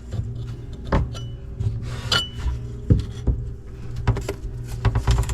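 Wire mesh being handled and set over a hole in the wall: scattered knocks and light metallic clinks, one with a brief ring about two seconds in, over a steady low hum.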